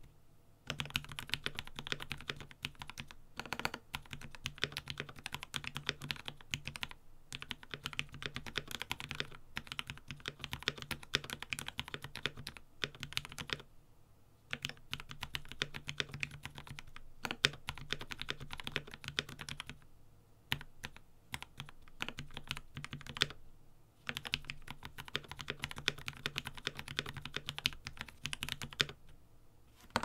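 Mechanical keyboard fitted with FEI Plus switches, typed on steadily at typing-test speed: a fast, dense run of key clicks. The run breaks off briefly three times, near 14 s, 20 s and 24 s, between passages. The keyboard sits on a bare desk with no desk mat.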